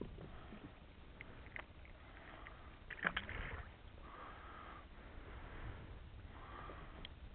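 A sharp splash about three seconds in as the feather rig drops back into the sea beside the boat, over faint water lapping at the hull.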